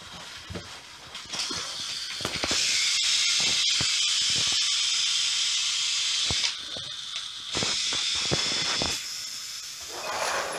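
A steady hiss that comes up about a second in, holds loudest through the middle and fades near the end, over scattered light clicks of plastic toy pieces being handled.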